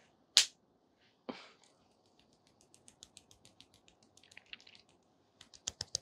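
Fingertips patting and slapping against the cheek to blend in makeup. A couple of single taps come first, then faint light taps, and near the end a fast run of sharper slaps, about five or six a second.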